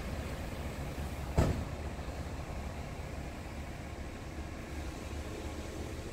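Steady low rumble of a Scania R tractor unit idling, heard from inside its cab, with one sharp thump about a second and a half in.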